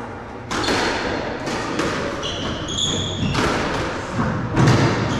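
Squash rally: the hollow ball struck by rackets and smacking off the court walls about once a second, ringing in the enclosed court, with a brief high squeak from court shoes on the wooden floor around the middle.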